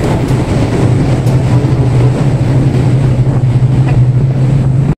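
Steady, loud low drone of a large ship's machinery heard on the open deck, a constant hum with a noisy rush over it.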